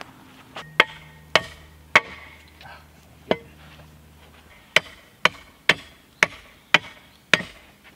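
Hatchet chopping into a wooden stick, cutting notches for a pot-hanger: sharp wood-striking blows in two runs, four blows, a pause of over a second, then six quick blows about two a second.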